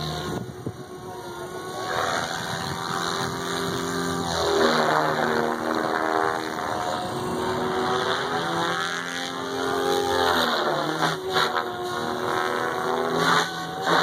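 SAB Goblin 700 electric RC helicopter flying overhead: a continuous motor and rotor-blade whine whose pitch repeatedly slides down and back up as the rotor is loaded through the manoeuvres.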